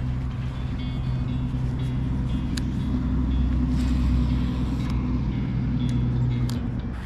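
A steady low motor hum that cuts off about six and a half seconds in, with a few sharp clicks on top of it.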